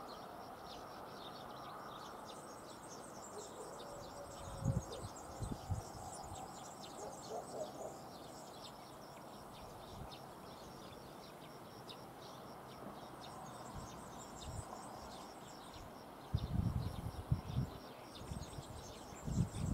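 Small birds chirping and twittering continuously over steady outdoor background noise. A few low thumps come about five seconds in, and again repeatedly over the last few seconds.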